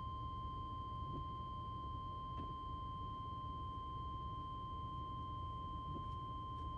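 A steady high-pitched electronic tone with a fainter, higher tone above it, over a quiet low rumble, heard inside the parked car's cabin.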